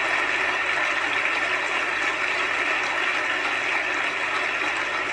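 Large crowd applauding steadily, a dense, even clapping with no single claps standing out.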